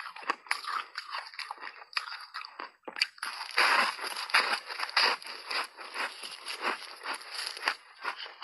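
Ice chunks coated in matcha powder being bitten and crunched between the teeth: irregular crunching and chewing, with a loud bite about three seconds in followed by rapid, dense crunching.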